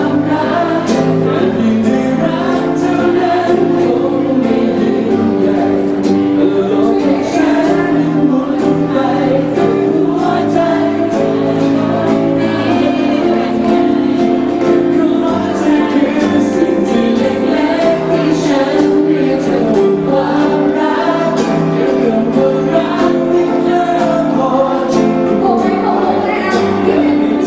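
Live acoustic duet: a woman singing a slow love song into a microphone, with a man strumming an acoustic guitar and singing along.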